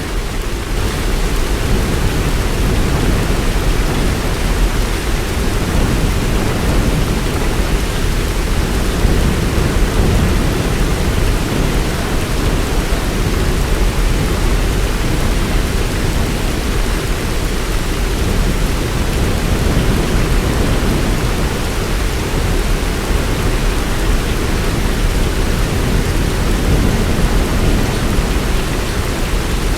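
Heavy rain pouring steadily: a dense, even hiss with a deep low rumble under it.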